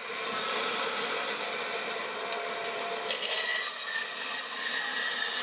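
Bandsaw blade cutting through a bark-covered log, trimming off a knot and cracked end grain: a continuous rasping saw noise that turns brighter about three seconds in.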